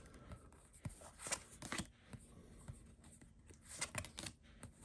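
Trading cards being handled and flipped over by hand: a few soft card slides and taps, in two short clusters with quiet gaps between.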